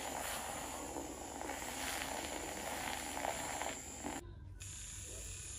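Battery-powered handheld milk frother running with its whisk in a glass jug of milk, a steady noisy whir as it churns the milk into foam. The sound breaks off abruptly about four seconds in and is quieter after that.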